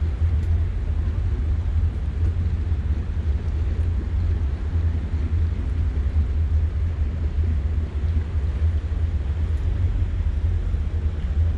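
Steady low rumble of a cabin cruiser's MerCruiser 7.4 L inboard engine idling as the boat creeps slowly forward, mixed with wind buffeting on the bow-mounted microphone.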